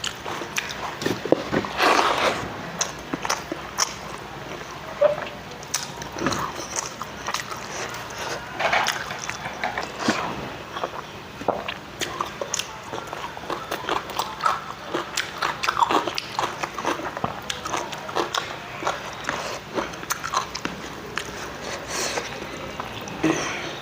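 A person eating rice close to the microphone: chewing and mouth sounds, a run of short, irregular clicks and smacks.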